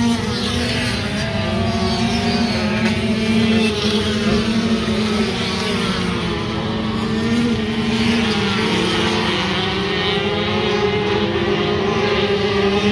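Several flat-track racing motorcycles running hard around a dirt oval together, engines revving up and easing off through the turns, their pitches rising and falling as the bikes pass.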